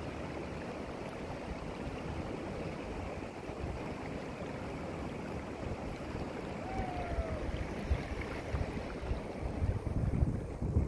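Shallow river rushing over rocks, a steady rush of water, with wind buffeting the microphone near the end.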